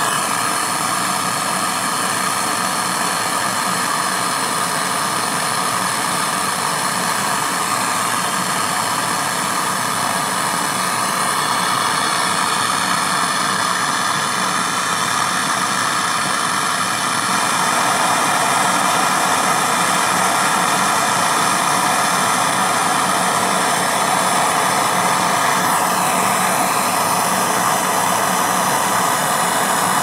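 Handheld butane gas torch burning with a steady rushing hiss as it brazes a copper filter drier into a refrigerator's refrigerant line. The flame noise gets slightly stronger about halfway through.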